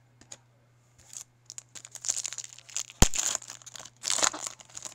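Foil wrapper of a Topps Chrome baseball card pack being torn open and crinkled by hand, with one sharp click about three seconds in.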